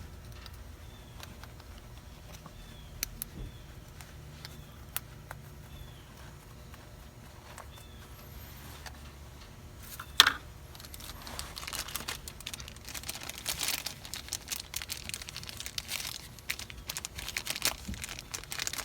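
Hand work on a part: one sharp knock about ten seconds in, then a steady run of crinkling and rustling, like plastic or packaging being handled. Before the knock there are only a low hum, a few light clicks and faint small chirps.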